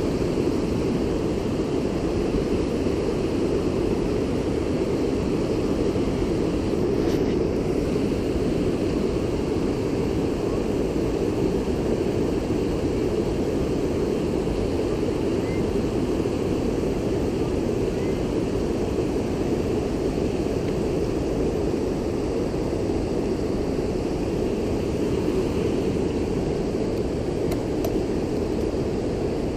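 Steady rushing roar of creek water pouring over a low weir, the creek running high and fast after heavy rain.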